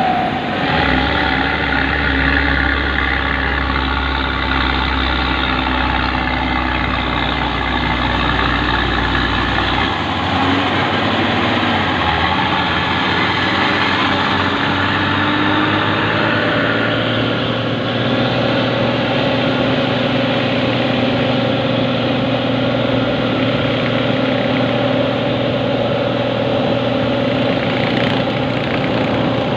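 Diesel engine of an intercity bus running at low speed, heard from close behind over the hum of the following motorcycle and road noise. A deep drone under it drops away about ten seconds in.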